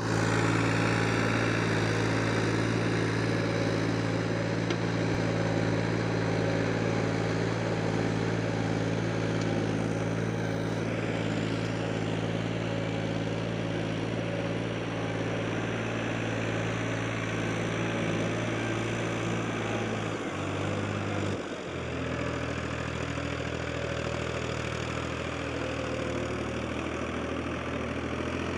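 Tractor's diesel engine running steadily. About twenty seconds in, the engine note shifts, dips briefly, then settles at a slightly lower pitch.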